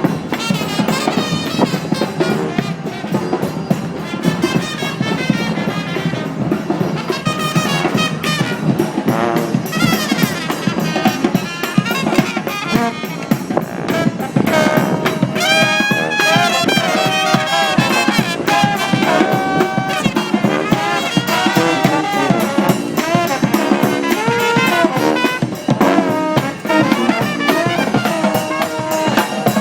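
Live brass band playing: horns carry a melody over continuous drumming.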